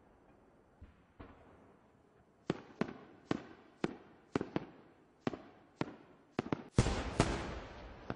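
A series of sharp cracks, about a dozen in four seconds at uneven spacing, followed near the end by a louder, longer crackling burst.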